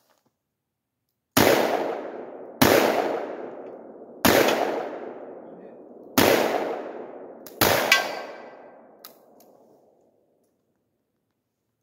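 Smith & Wesson 500 Magnum revolver fired five times, one to two seconds apart, each shot loud with a long echo dying away behind it. After the last shot comes a faint metallic ding.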